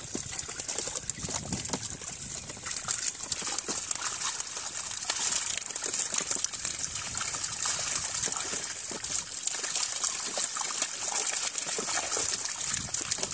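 Netted fish thrashing and splashing in shallow water, a steady dense spatter of small splashes and slaps.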